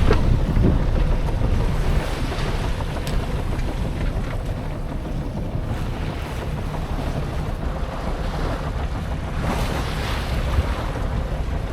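Wind buffeting the microphone over water rushing and sloshing along the hull of a small sailing yacht under way at sea, with a louder surge of water about ten seconds in.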